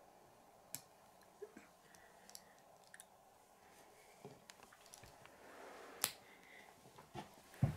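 Small plastic Lego pieces clicking as they are handled and pressed together: a scattered run of light, quiet clicks, the loudest about six seconds in.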